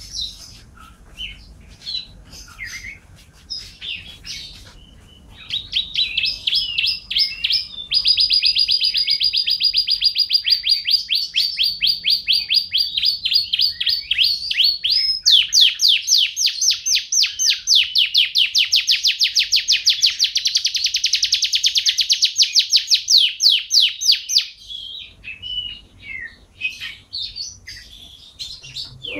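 Canary singing: scattered chirps, then long, fast rolling trills from about five seconds in until about twenty-four seconds in, and scattered chirps again near the end.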